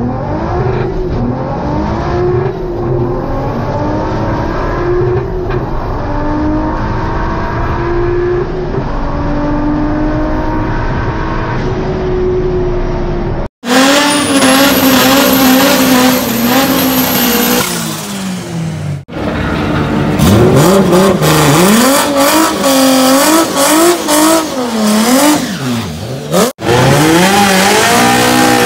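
Racing Volkswagen engine heard from inside the car on a drag run, pitch climbing and dropping back through several gear changes. Then, in a hard cut, drag-prepped VW engines held at high revs in burnouts with tyre squeal, one revved in quick bursts up and down, the last held at a steady high note.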